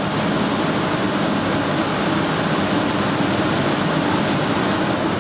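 Steady rushing noise of air, as from a ventilation system.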